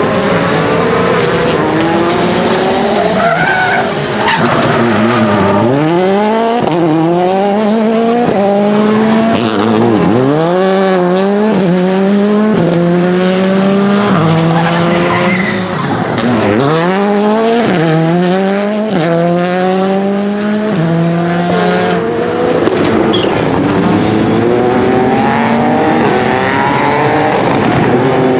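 Rally car engine revving hard: it accelerates up through the gears with quick pitch drops at each shift, then brakes and downshifts for corners about five seconds in, ten seconds in and sixteen seconds in, before pulling away again. Brief tyre squeal comes through in the corners.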